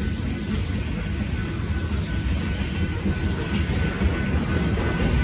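Covered hopper cars of a freight grain train rolling past, a dense, steady rumble of wheels on rail with a faint thin high tone over it.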